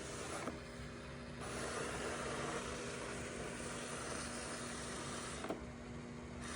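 ECOVACS Deebot X2 Omni robot vacuum running with a new replacement main roller brush, giving an unusually loud whirring noise with a steady hum, even at its lowest suction setting. The noise persists with the new brush, which the owner takes to mean the main brush motor, not the brush, is at fault. The hiss drops out briefly twice, each time with a click.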